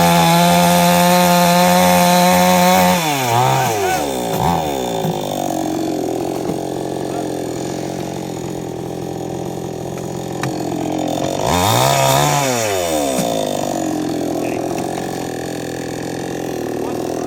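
Chainsaw engine revved up to full speed and held there for about three seconds, then let back down to idle with a couple of quick throttle blips. About twelve seconds in it is revved hard again briefly before dropping back to a steady idle.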